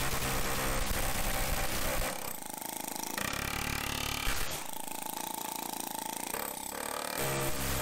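Pneumatic air hammer rattling continuously against a steel lower control arm, driving out the old pressed-in bushings. Its tone changes a few times as the bit is worked.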